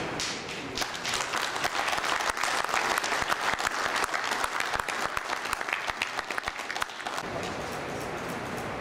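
Audience clapping, dense and sustained, then dying away about seven seconds in.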